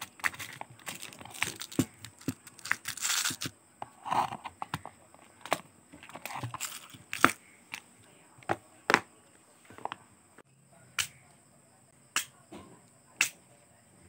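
Small plastic storage containers being lifted out of a clear plastic organizer box: irregular sharp clicks and knocks of plastic on plastic, with a brief rustling scrape about three seconds in, the clicks growing sparser in the second half.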